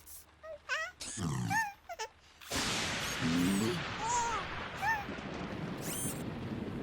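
Cartoon sound effects: short, squeaky, animal-like vocal chirps. About two and a half seconds in a steady rushing hiss starts abruptly, and more chirps sound over it.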